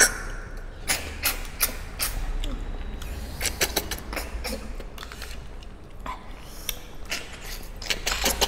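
Two people sucking cooked freshwater snails (tharoi) out of their shells: short, sharp slurps come irregularly, sometimes several a second.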